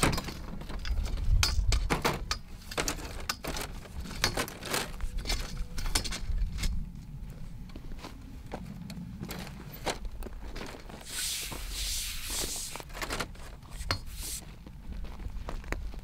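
Metal clicks, rattles and knocks of a folding aluminium camp table and folding chairs being unfolded, their legs locked and set down on stony ground. A short rushing hiss comes about two-thirds of the way through.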